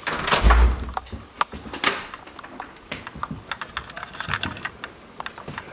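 Handheld camera handling and footsteps across a debris-strewn floor: a heavy thump and scuffle about half a second in, then a run of irregular light clicks and taps.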